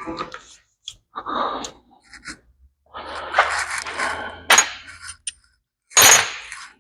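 Wrench and other metal hand tools clinking and scraping against the header and its bolts in irregular bursts, with a longer stretch of scraping about three to five seconds in.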